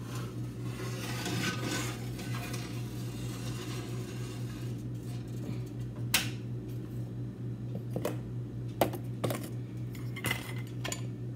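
Scattered clinks and knocks of bowls and kitchen utensils being handled, the sharpest about six seconds in and a few more close together near the end, over a steady low hum.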